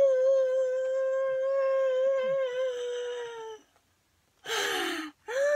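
A young girl's long, held squeal of excitement, one steady high note sinking slightly before it stops about three and a half seconds in. After a brief silence comes a breathy cry that falls in pitch, then another held squeal begins near the end.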